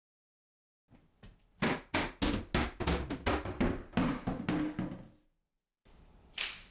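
A quick run of about a dozen knocks, roughly three a second, then one more sharp sound near the end.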